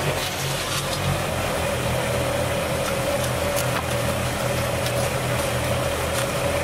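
Kubota BX compact tractor's small three-cylinder diesel idling steadily, with a shovel's blade scraping into gravelly soil a few times.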